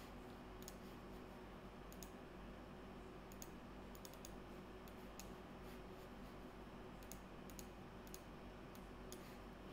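Faint, irregularly spaced clicks of a computer mouse, a dozen or so, over a low steady hum.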